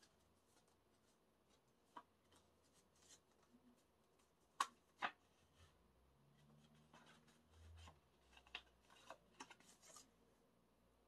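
Faint handling of an album's CD and its paper and plastic inserts: light rustling and small scattered clicks, with two sharper clicks about halfway through.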